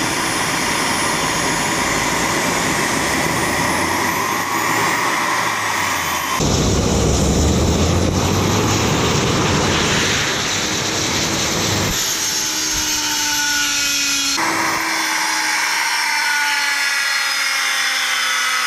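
Homemade turboshaft engine running unloaded at very high speed: a loud, steady jet-like roar with a high whine rising in pitch. The sound changes abruptly twice.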